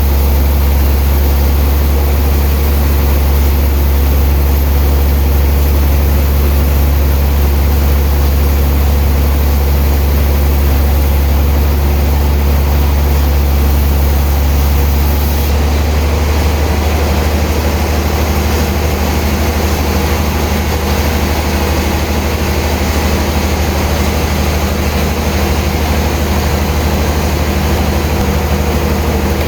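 Heavy sawmill machinery running with a steady, loud, deep drone, its tone shifting abruptly about halfway through.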